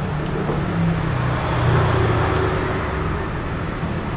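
Road traffic: a motor vehicle's engine running close by, a low hum that shifts in pitch as it goes, over a steady street noise.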